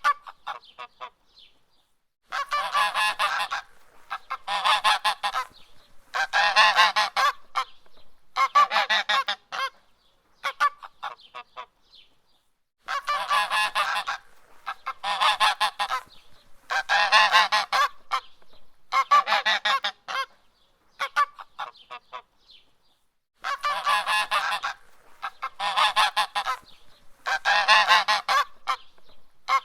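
Goose honking: loud harsh calls about a second long, one roughly every two seconds, in runs of four or five with short pauses between the runs.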